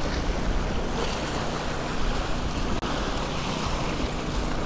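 Waves surging and splashing against the jetty's granite boulders, a steady wash of surf, with wind buffeting the microphone.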